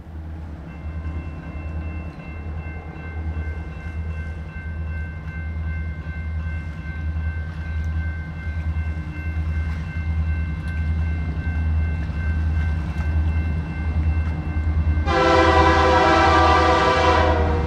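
BNSF freight train passing, its diesel locomotives running with a low, steady pulsing drone. About fifteen seconds in, the lead locomotive's air horn sounds one long blast of about two and a half seconds.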